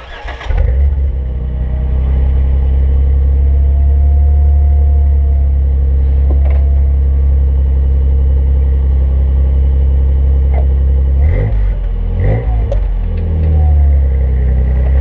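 2008 Jeep Wrangler JK's 3.8-litre V6 starting through a Flowmaster 40 Series exhaust. It catches within a second and then idles steadily. About eleven seconds in it is revved twice briefly, then settles back to idle.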